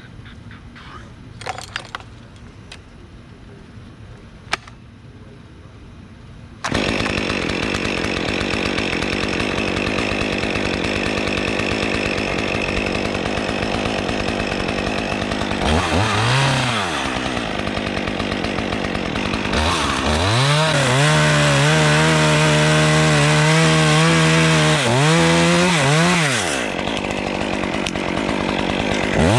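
Chainsaw engine starting up loud and steady several seconds in. It revs briefly once, then is held at full throttle for about seven seconds while cutting a large limb, drops back to idle, and revs again at the end.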